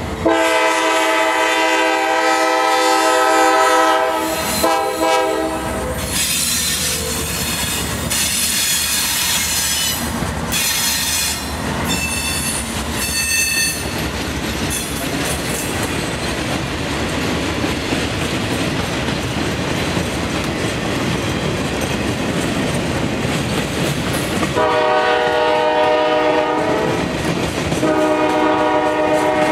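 Norfolk Southern diesel locomotive's air horn sounding long blasts as a freight train passes, with the rolling noise of the cars and brief high wheel squeals in between. The horn stops about six seconds in, leaving the steady rumble of the trailers on the rails, then sounds again about 25 seconds in, with a short gap near the end.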